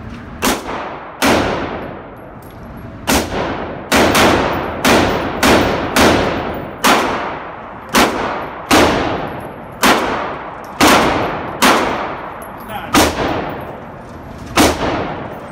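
Handgun shots fired at an indoor shooting range: about sixteen sharp reports at an uneven pace, several lanes firing at once, each shot followed by a short echoing tail off the range walls.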